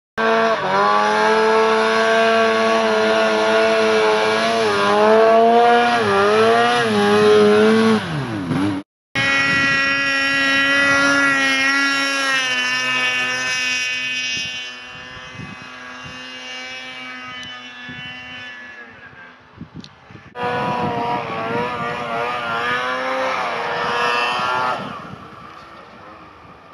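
Snowmobile and snowbike engines running at high revs through powder, in several cuts. A steady high note wavers and then dives in pitch about eight seconds in, before a sudden cut. A high steady note then fades away as the machine rides off, and another engine comes in about twenty seconds in and fades near the end.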